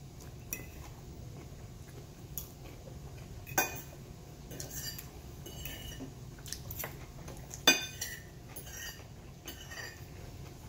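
Metal fork clinking and scraping against a plate while eating, a string of short sharp clinks about a second apart, the loudest about two-thirds of the way through.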